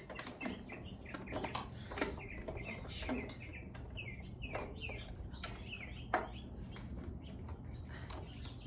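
Small birds chirping in quick short calls, mixed with light clicks, rustles and knocks of a hand rummaging inside a motorcycle's small under-seat storage compartment, one sharper knock about six seconds in.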